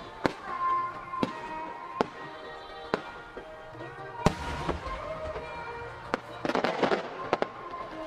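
Aerial firework shells bursting, with sharp bangs about once a second, the loudest about four seconds in, and a quick run of crackles between six and seven seconds, over background music.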